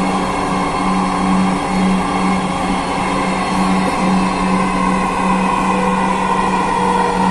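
Dhaka Metro Rail electric train running along the elevated line, heard from inside the car: a steady running noise with an electric whine that rises slightly in pitch, over a low hum that pulses about twice a second.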